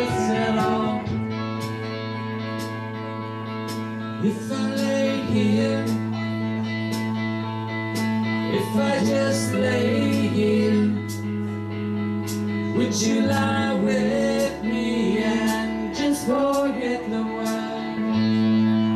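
Live band music: guitar over held bass notes that change every few seconds, with a steady beat of cymbal strokes.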